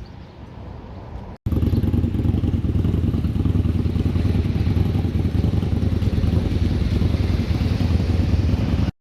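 Vehicle on the move: a steady, loud, low road-and-engine rumble that starts abruptly about a second and a half in, after a quieter stretch, and cuts off just before the end.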